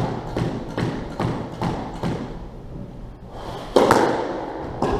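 Squash ball and racket impacts echoing around a squash court: a run of light, evenly spaced hits, about two or three a second, then a hard racket strike about three-quarters of the way through and another just before the end.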